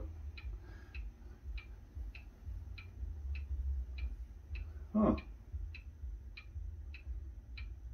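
Clock ticking steadily, a little under two ticks a second, over a low room hum, with a brief sound of a man's voice about five seconds in.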